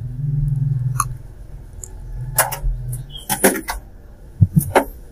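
A few sharp clicks and a short clatter of light handling, over a low hum that comes and goes.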